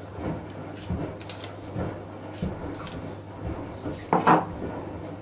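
A metal teaspoon clinks and scrapes in a small glass jar as whole coriander seeds are scooped out and tipped into the plastic bowl of an electric coffee grinder: a string of short, separate clinks, with a louder clunk about four seconds in.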